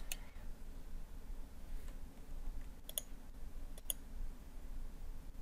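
Computer mouse buttons clicking a few separate times: once right at the start, then about three and about four seconds in, over a faint low steady hum.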